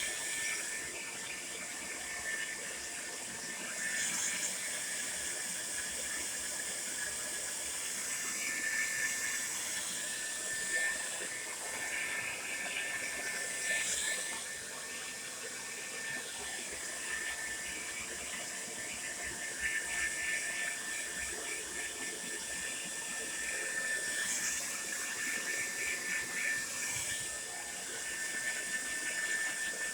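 Tresemme Salon Smooth Professional hair dryer running steadily: an even airy rush with a thin high whine, swelling slightly now and then.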